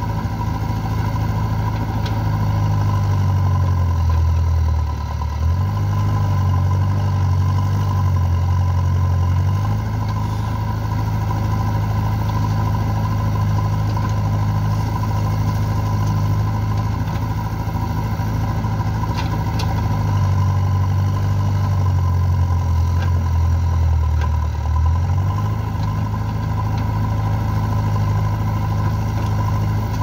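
JCB backhoe loader's diesel engine running steadily while digging and loading soil. Twice its pitch sags for a few seconds, about four seconds in and again near twenty seconds in, then comes back up as the engine takes and sheds the load of the digging arm.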